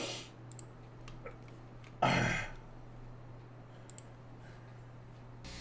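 Mostly quiet, with a low steady hum and a few faint scattered clicks. About two seconds in, a man makes one short throaty vocal noise, lasting about half a second.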